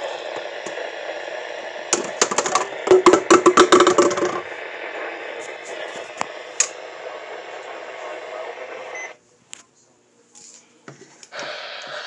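Weather radio speaker giving a steady static hiss, with a loud crackling burst of clicks about two seconds in. About nine seconds in the sound cuts out to near silence, with a few clicks, then the hiss comes back near the end.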